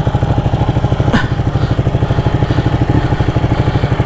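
Ducati Panigale 899's Superquadro L-twin engine idling with an even, rapid low throb.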